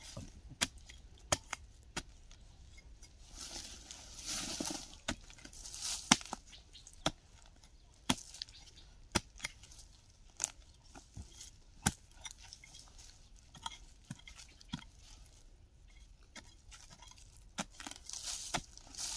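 A digging tool striking into soil again and again while a wild yam tuber is dug out. The sharp chops come irregularly, about once a second, with a few spells of scraping and loosened earth between them.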